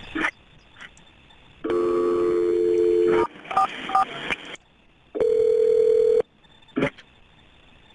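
Telephone line audio of a call being placed: a dial tone for about a second and a half, two touch-tone key beeps, then one ring of the ringback tone, with a few clicks on the line. The call is then answered by an emergency dispatcher.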